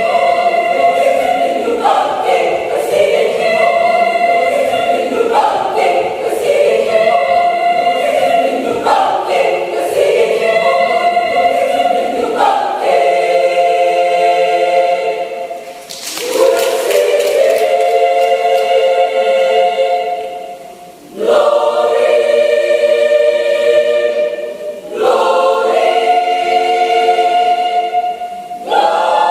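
Mixed adult church choir singing in sustained chords, the phrases broken by brief pauses a few times.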